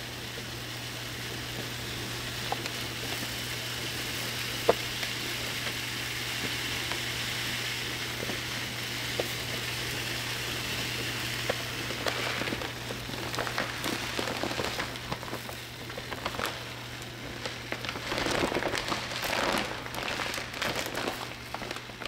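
Dry long-grain rice pouring from its bag into a plastic rice bin: a steady hiss of grains streaming in, which turns into an uneven, crackly patter of grains and rustle from about halfway on.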